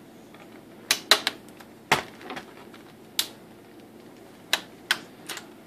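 Plastic snap clips of an ASUS X501A laptop's screen bezel clicking loose as the front panel is pried off with a flathead screwdriver. About eight sharp, irregular clicks: a quick cluster about a second in, then single clicks spaced out, with three more near the end.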